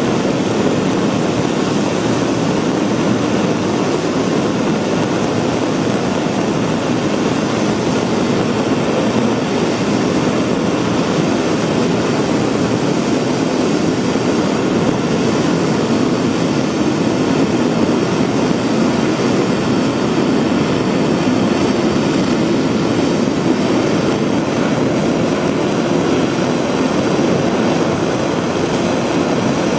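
Korean launch vehicle (Nuri) third-stage 7-tonne-class kerosene–liquid-oxygen rocket engine firing steadily during a long hot-fire test: a continuous, even rushing noise that holds one level without change.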